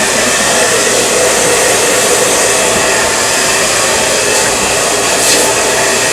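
Handheld hair dryer blowing steadily on a high setting as it dries a client's damp hair.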